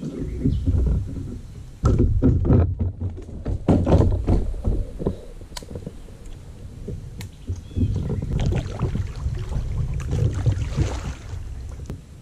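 A bass being fought to a plastic fishing kayak: repeated knocks and bumps against the hull over a low rumble, with a burst of splashing near the end as the fish is brought alongside.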